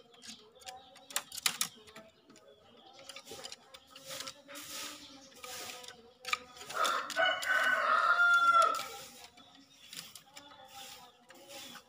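Green junglefowl cock crowing once, a loud hoarse call of about two seconds that comes a little past halfway and ends abruptly. Before it, scattered light taps and soft low calls.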